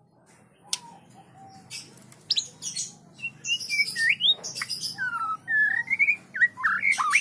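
White-rumped shamas calling: a few scattered chirps and clicks at first, then, from about three seconds in, a quick run of whistled notes sliding up and down, mixed with harsh chattering calls, growing busier toward the end.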